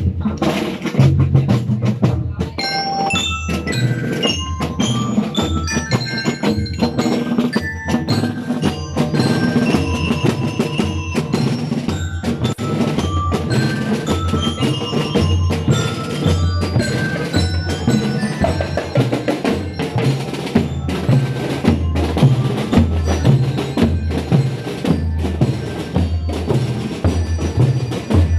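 Marching drum and lyre corps playing: bell lyres ring out a melody of short metallic notes over a steady beat of bass and marching drums.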